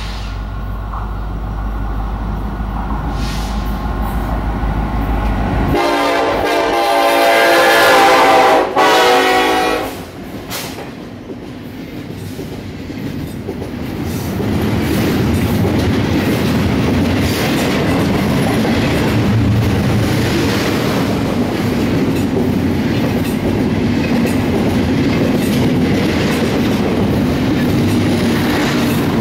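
Diesel freight train approaching with its engines humming. About six seconds in it sounds one long air-horn blast lasting about four seconds, the loudest sound here. The locomotives go by, and from about halfway the double-stack container cars roll past with steady wheel clatter on the rails.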